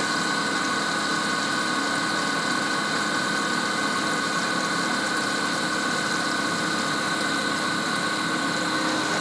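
CNC milling machine's end mill cutting a metal plate under flood coolant: a steady whine with several held tones over a hiss of coolant spray.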